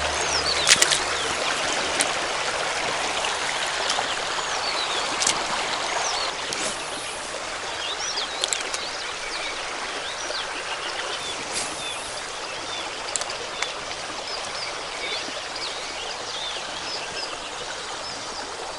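River water running steadily, with birds singing in many short chirping calls over it and a few sharp clicks.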